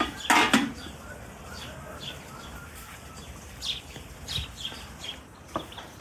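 Metal chimney pipe clattering as it is set onto the top of a coal-fired samovar, a brief loud clank about half a second in. Small birds chirp now and then.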